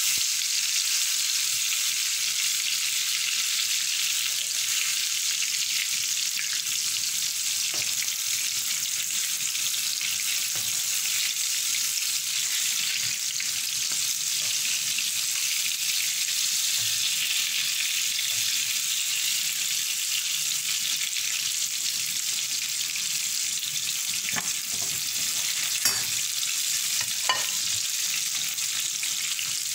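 Batter-coated green chillies (chilli bajji) deep-frying in hot oil, a steady sizzle. A few sharp clicks come near the end.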